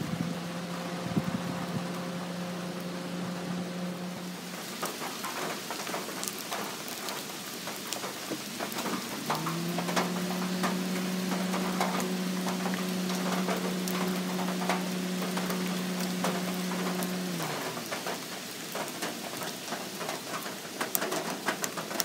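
Steady rain falling, with many sharp drip ticks from about four seconds in. A low steady hum runs through the first few seconds and again for about eight seconds in the middle, sliding up in pitch as it starts and down as it stops.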